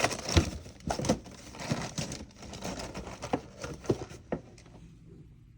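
Small plastic toy parts clicking and knocking as they are handled and sorted, a run of irregular sharp clicks that dies away near the end.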